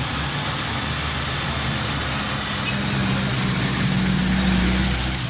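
An engine idling steadily, with a thin high whine held above the running.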